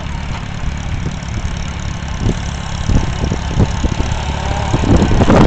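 Porsche-Diesel tractor's air-cooled diesel engine running steadily with a low-pitched note.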